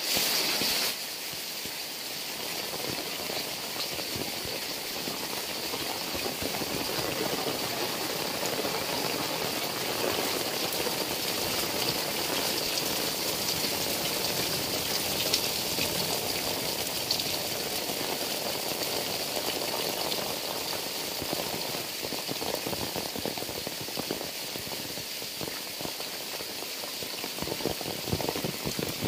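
Heavy rain falling steadily on roofs, leaves and wet ground, with water streaming off the roof edges: an even, unbroken rush with a few sharp drips.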